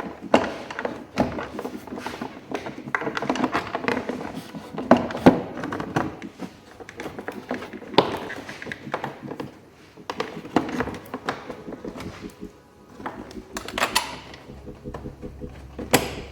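Background music over irregular knocks and clunks as the slam panel and its bolts are handled and fitted finger tight.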